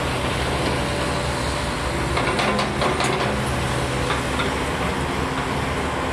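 Caterpillar tracked excavator's diesel engine running steadily at a digging site, with a few sharp clanks about two and a half to three seconds in.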